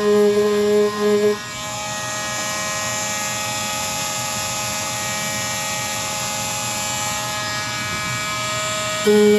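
A power sander running steadily on motorcycle bodywork, with a strong low hum for the first second or so and again briefly near the end, over a steady hiss.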